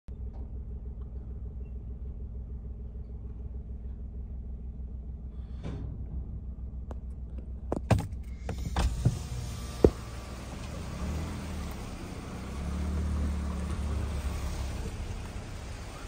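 Steady low rumble of a car's engine and road noise, heard inside the cabin. A few sharp knocks come about eight to ten seconds in.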